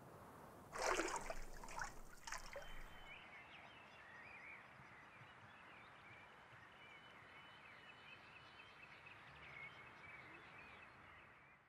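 Water pouring and splashing briefly about a second in, then faint birds chirping over a soft hiss that fades out near the end.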